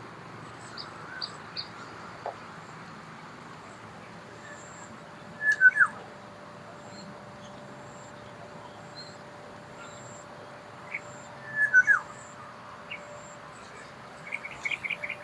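Wild birds calling: two loud whistled calls that slide downward, about six seconds apart, over faint high chirps, with a quick run of short notes near the end.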